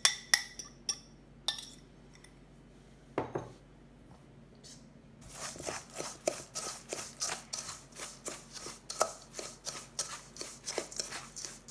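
A few sharp clinks in the first second as a small ceramic bowl is emptied into a stainless steel mixing bowl. Then, from about five seconds in, a fork scrapes and clicks against the steel bowl in quick, repeated strokes, mixing graham cracker crumbs with butter and sugar for a crust.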